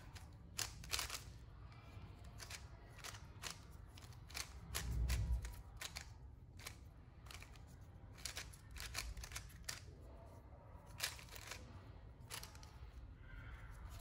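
Plastic 3x3 bandaged puzzle cube being turned by hand: a string of irregular quick clicks and clacks as its layers snap round, with a dull low thump about five seconds in.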